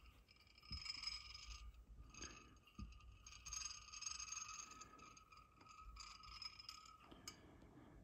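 Near silence: faint rustling and scraping as the glass vacuum tube is turned in the hands, a few soft knocks, and a faint steady high whine that stops near the end.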